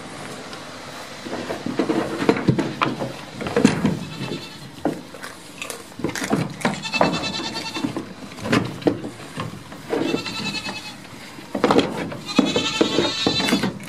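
Goat kids bleating: three wavering calls of about a second each in the second half. Before them, irregular knocks and rustling close to the microphone.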